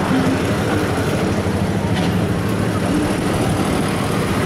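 Busy street ambience: a steady rumble of traffic with scattered voices of passers-by.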